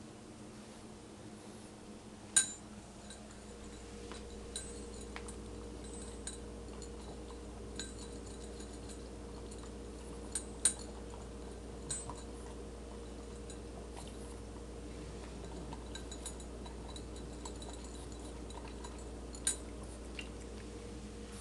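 French bulldog eating from its food bowl: scattered small clicks, with a few sharp clinks against the bowl, about two seconds in, twice near the middle and once near the end. A steady low hum runs underneath.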